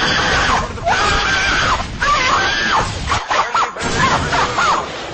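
A meme sound effect clip of repeated high-pitched screams, each rising and falling in pitch, over a loud noisy background.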